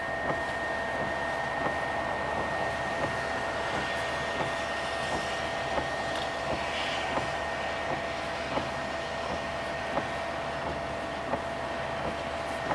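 Steady noise inside a car cabin, with two faint steady tones and a light click about every second and a half.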